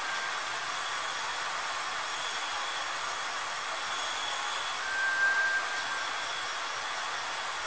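Steady high hiss of a nature ambience track, with one long held whistled note about five seconds in that lasts about a second.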